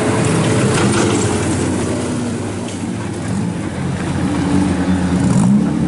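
Engines of several junior sedan speedway cars running as they race on a wet dirt track. Their pitch rises and falls with the throttle, and one engine revs up near the end.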